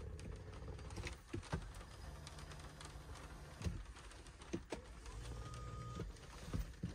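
Quiet car cabin with a low steady hum, several light clicks and taps of a hand on the interior trim and controls, and a short steady beep about five seconds in.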